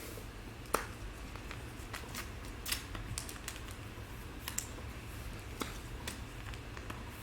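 Trading cards and foil pack wrappers being handled, with short clicks and rustles scattered irregularly, the sharpest about a second in, over a low steady hum.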